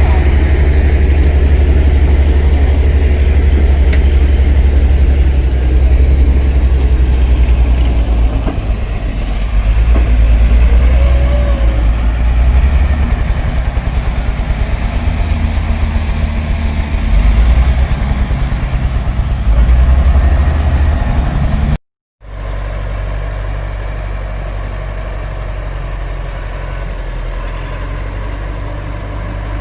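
Heavy earthmoving machine's diesel engine working, its low drone swelling and easing with the load. It breaks off abruptly about 22 seconds in and comes back quieter and steady.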